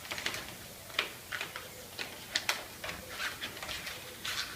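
Weatherstripping being pressed back into the groove of a wooden door jamb by hand: irregular small clicks and rubs.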